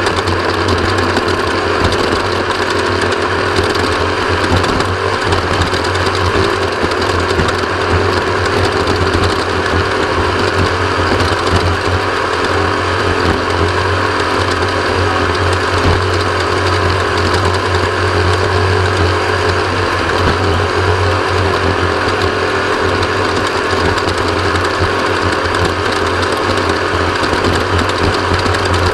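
Off-road race vehicle's engine running hard and steady at speed, with a constant low drone and dense rattling from the vehicle over rough ground.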